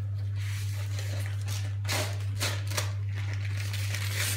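Paper rustling and crinkling in several irregular bursts as a sheet of puff pastry is unrolled from its backing paper, over a steady low hum.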